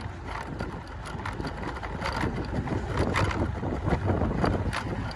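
Wind rumbling on a handheld microphone, with the steps of someone walking along a dry field path as short irregular knocks about twice a second.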